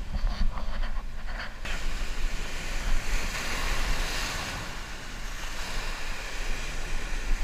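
Ocean surf surging and washing over a rock ledge, the wash swelling in loudly about a second and a half in, with wind rumbling on the microphone.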